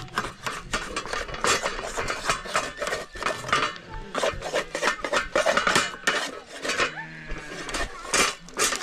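Dishes and metal utensils being handled, a dense, irregular run of clinks and knocks.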